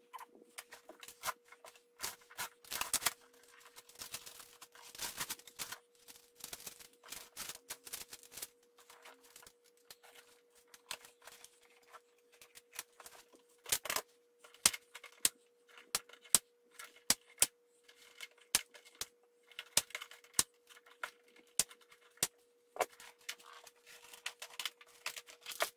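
Cardboard box and packaging being opened and unwrapped, sped up, so the rustling, crackles and sharp snaps and taps come quickly one after another. A faint steady hum runs underneath.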